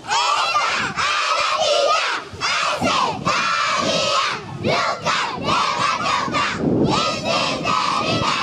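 A large crowd of young schoolchildren shouting together, loud and continuous, with many voices overlapping.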